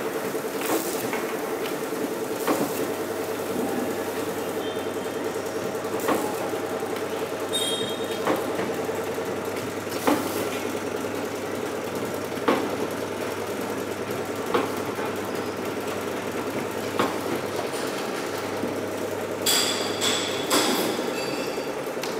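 Heidirose HD-D01 DVD dissection machine running with a steady motor hum, with sharp clicks roughly every two seconds as discs pass through and are split into two halves. Near the end there is a burst of clattering with high metallic ringing.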